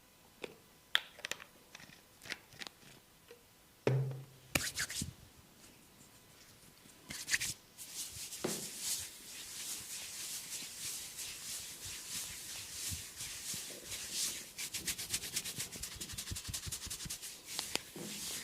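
Massage by hand: a few scattered taps and knocks, then from about eight seconds in a fast, continuous run of light strokes on skin.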